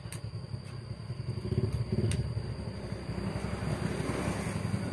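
Low rumble of a motor vehicle's engine, swelling louder about a second and a half in and carrying on.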